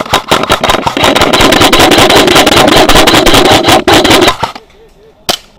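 Airsoft electric gun firing a long full-auto burst close by: a very rapid string of shots over a steady motor whine, stopping about four seconds in, followed by a single sharp shot near the end.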